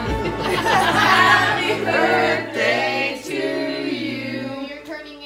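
Music with choir-like singing over held low notes; the low notes stop about four and a half seconds in and the music grows quieter.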